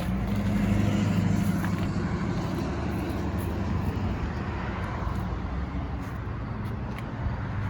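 A car's engine running close by, with steady road traffic noise; it is loudest in the first two seconds and then slowly fades.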